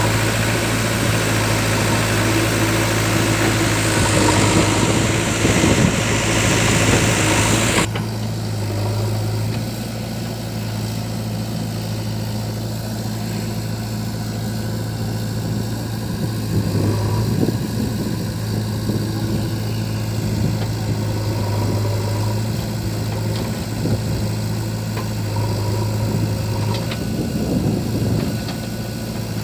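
Heavy diesel engine running at a steady idle with a low hum. About eight seconds in the sound changes abruptly and the high hiss drops away, while the engine hum carries on.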